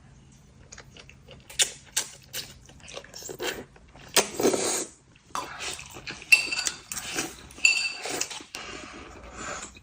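Dishes and cutlery clattering and knocking together in a string of sharp clicks. There are two short ringing clinks about six and a half and eight seconds in, and two half-second stretches of noise about four and five and a half seconds in.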